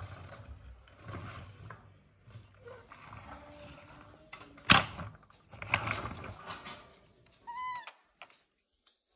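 Baby monkey rummaging in a woven plate of food: rustling and scraping, with one sharp knock about halfway through that is the loudest sound. Near the end comes a brief high squeak.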